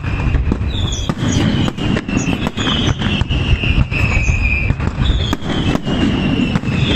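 Aerial fireworks castillo by Pirotecnia Zarzoso: a dense run of sharp bangs over a continuous rumble, with whistling shells whose pitch glides downward, roughly one whistle a second.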